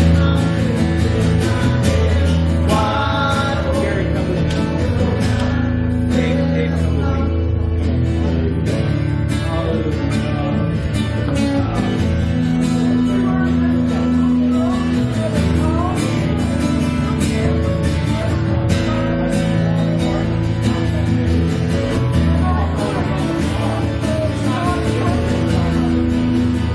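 Church worship music: a live band with guitar playing steadily, with some singing over it.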